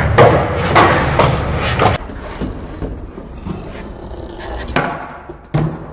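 Skateboard rolling on a smooth concrete floor, with sharp clacks of the deck and wheels hitting the ground as the board is popped. Several clacks come in the first two seconds. Then the rolling drops suddenly to a quieter level, with two more clacks near the end.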